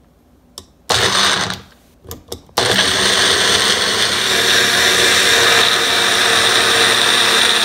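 Magic Bullet personal blender run by pressing the cup down: a short burst about a second in, two quick pulses, then steady blending from near three seconds on, blending a drink of fruit, ice, coconut milk and rice milk.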